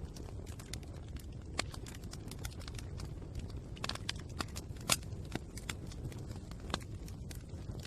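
Fire crackling: a steady low rumble with irregular sharp pops and snaps, the loudest pop about five seconds in.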